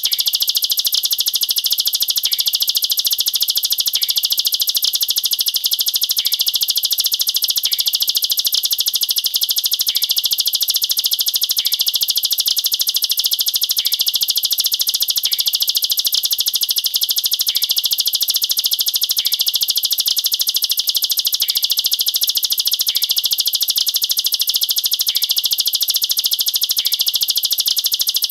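Ciblek sawah singing its 'nembak rapat' rapid-fire song: an unbroken, very fast, high, steady trill of closely packed notes.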